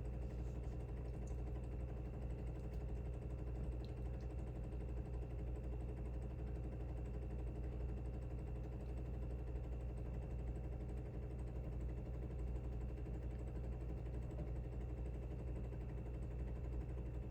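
Jura Z10 super-automatic coffee machine's pump running with a steady low hum, pushing room-temperature water through the ground coffee for a cold-brew shot.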